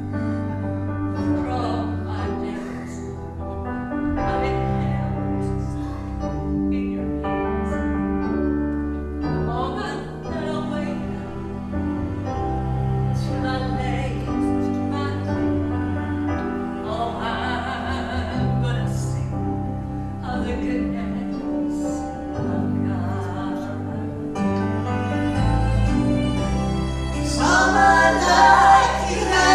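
Live gospel music: held chords over a low bass line, with singing that grows louder near the end.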